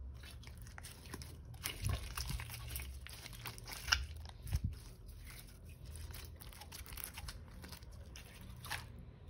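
Clear glitter slime being squeezed and stretched by hand around a plastic action figure: a continuous sticky crackling and popping, with a few louder pops in the middle, dying away just before the end.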